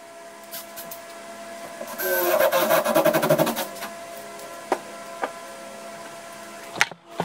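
Cordless drill running for about a second and a half, starting about two seconds in, as it bores into the plywood hull bottom. A few sharp clicks follow.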